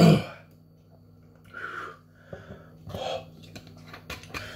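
A man's breathing and throat sounds after chugging a bottle of hot sauce: a loud sharp gasp at the start, then several breathy exhales and a few small clicks, his reaction to the heat.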